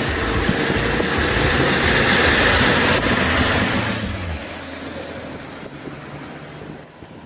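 Mercedes-Benz 1222 S truck's six-cylinder diesel engine running as the truck drives by, growing louder to a peak about three seconds in, then dropping in pitch and fading away after about four seconds.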